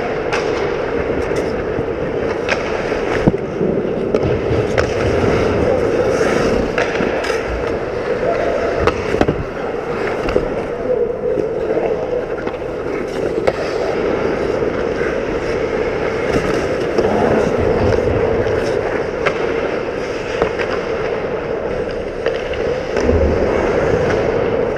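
Ice hockey play: skates scraping and carving on the ice, with sharp clacks of sticks and puck scattered throughout, over a steady droning hum.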